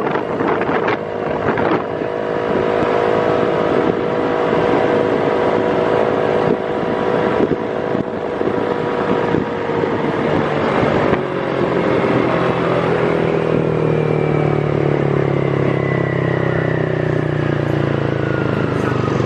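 A vehicle engine running amid wind and traffic noise. Its tone slowly falls in pitch through the second half, and a deeper hum joins about halfway through.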